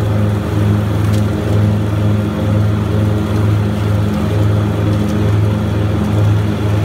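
Grasshopper 325D diesel zero-turn mower running steadily with its Power Vac blower drawing in leaves: a low engine drone that throbs in a slow, regular beat over a whoosh of rushing air.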